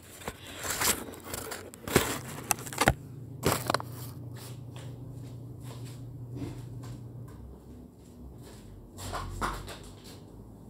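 Handling noise: clothes and the phone rustling, knocking and clicking, most of it in the first four seconds, with a duller knock near the end, over a steady low hum.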